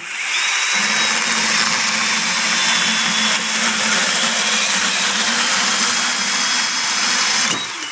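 Bosch BSH180 18V cordless compact band saw running and cutting through a metal tube under its own weight: a steady whine with the blade rasping through the metal. It winds down and stops about seven and a half seconds in.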